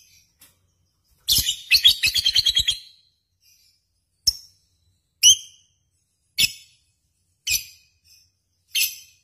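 Lovebird calling: a fast chattering run of shrill chirps lasting about a second and a half, then single sharp, shrill chirps about once a second, five in all.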